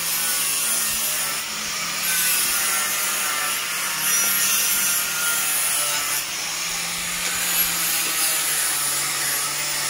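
A workshop machine running steadily: a low motor hum under a continuous hissing rasp, like a power tool working.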